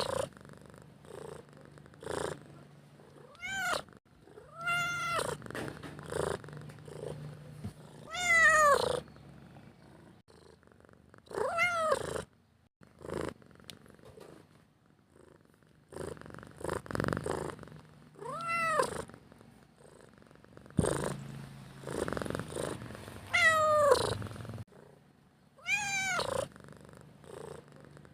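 Domestic cat meowing repeatedly, about seven rising-then-falling meows a few seconds apart, over a low steady purr. The cat is begging for food.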